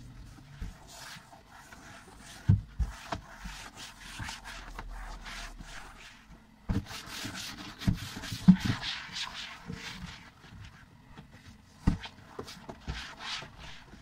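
A drying cloth rubbed in back-and-forth swishing strokes over the inside panels of a kitchen cabinet, with a few sharp knocks against the cabinet along the way.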